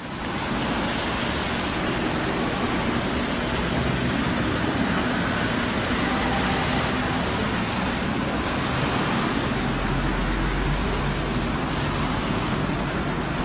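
Steady outdoor street ambience: an even, dense hiss with a low rumble that swells briefly about ten seconds in.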